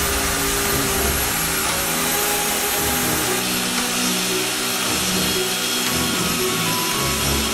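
Festool plunge-cut track saw running steadily along its guide rail, its blade cutting through cured epoxy resin and throwing off resin chips.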